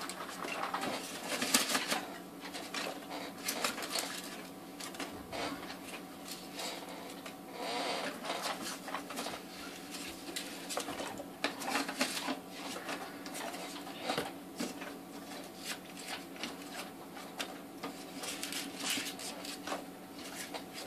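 Rustling and crinkling of polystyrene packing peanuts and a cardboard box being handled, with irregular clicks and scrapes throughout over a faint steady hum.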